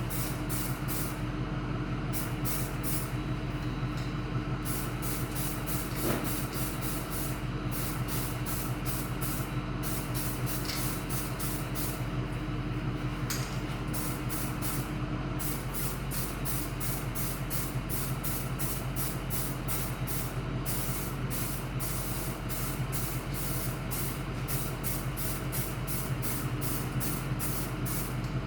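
Primer being sprayed onto a car bumper: high-pitched hiss in quick, regularly repeated bursts as the spray is triggered on and off. A steady motor hum runs underneath.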